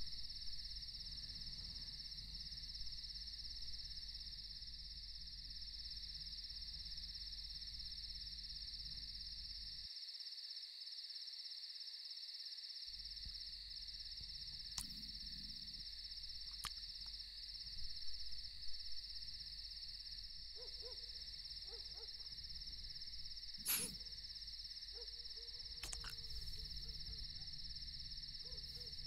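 Night ambience: insects chirring steadily at a high pitch over a low hum, with a few faint low calls in the second half.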